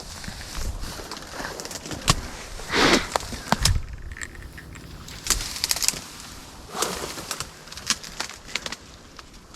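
A few short bird calls, the strongest about three seconds in and another near seven seconds, among scattered clicks and rustling.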